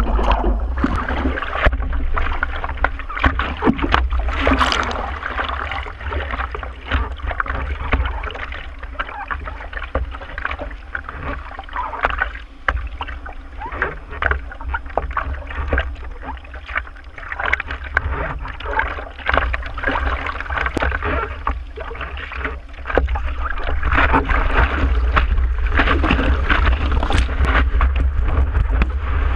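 Water splashing and sloshing around a surfboard as the surfer paddles, over a steady low rumble. Near the end the rush of water grows louder as whitewater and a wave carry the board.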